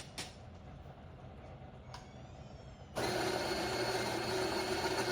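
A few light clicks, then about three seconds in the Fellow Opus electric conical burr coffee grinder's motor switches on suddenly and runs steadily, grinding coffee beans.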